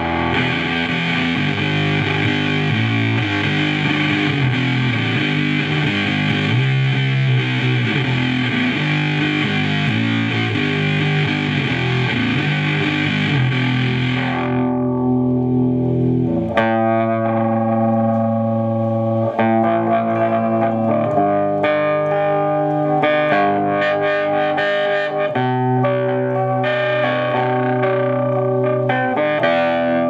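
Electric guitar with humbucker pickups played through a prototype fuzz pedal based on the Earth Sound Research Graphic Fuzz, into a valve amp: heavily fuzzed, saturated chords and notes. About halfway the bright fuzz fades away and the guitar rings on in much cleaner, sustained notes.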